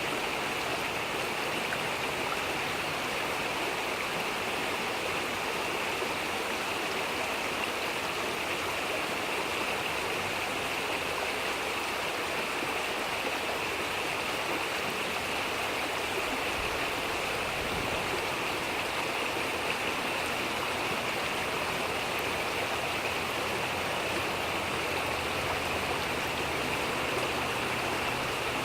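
A babbling brook: water running and burbling steadily over stones.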